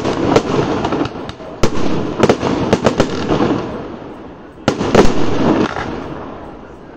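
Aerial fireworks bursting in a fast run of sharp bangs that thins out about halfway. Two loud bangs follow close together about two-thirds of the way in, and the sound then dies away.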